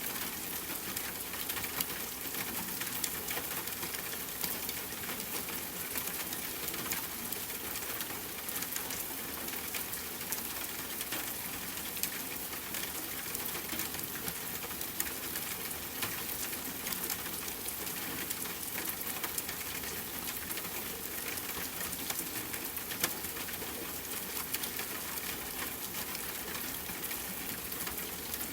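Steady rainfall mixed with a crackling fireplace fire, many small pops scattered over the even hiss of the rain.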